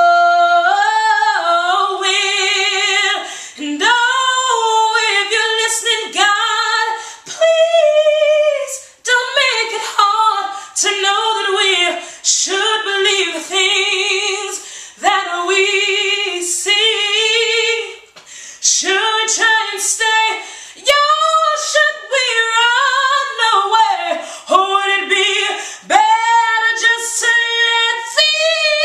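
A woman singing solo without accompaniment, mixing long held notes with a clear vibrato and sliding runs up and down in pitch, broken by short pauses for breath.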